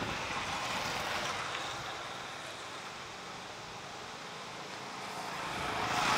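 Steady outdoor rushing noise with no distinct events, swelling about a second in and growing louder near the end.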